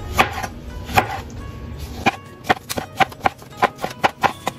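Kitchen knife chopping through tomatoes onto a plastic cutting board. There are two separate knocks, then from about halfway a quick run of knocks at about four a second.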